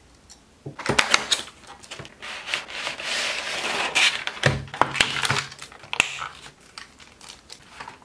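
Plastic bag crinkling and rustling as an HO scale model freight car is handled and unpacked, with a few sharp taps among the rustle. It starts about a second in and dies away about six and a half seconds in.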